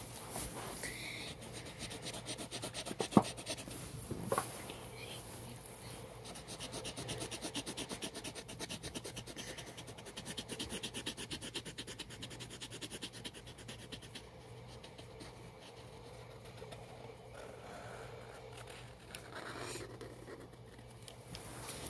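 Black paint marker scrubbing back and forth over a textured canvas board in quick, short strokes: a dry, rapid scratchy rubbing. A single sharp tap about three seconds in is the loudest sound.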